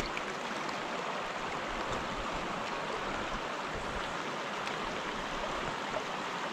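Small creek flowing: a steady rush of moving water.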